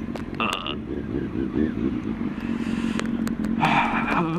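2005 Kawasaki ZX-6R's inline-four with a Remus full exhaust idling steadily while stopped, with a few light clicks and a brief higher-pitched wavering sound near the end.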